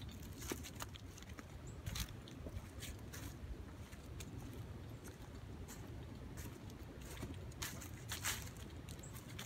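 Footsteps crunching through dry fallen leaves on a woodland trail, irregular steps about a second apart, over a low steady rumble.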